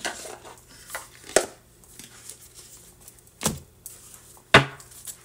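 A deck of tarot cards being taken from its box and shuffled by hand, with several sharp snaps and clacks of the cards, the loudest about a second and a half, three and a half, and four and a half seconds in.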